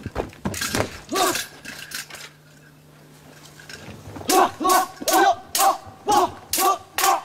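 Martial artists' short, sharp battle cries in a fast run of about three a second from about four seconds in, each with a sharp crack of a strike, during a double-sabre duel. A few separate sharp strikes come in the first two seconds.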